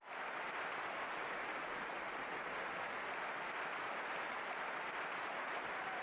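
Tennis crowd applauding steadily, a soft even wash of clapping that starts abruptly.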